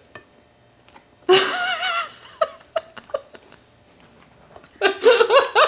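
A woman giggling in two short high bursts, one about a second in and another near the end, with a few small clicks between.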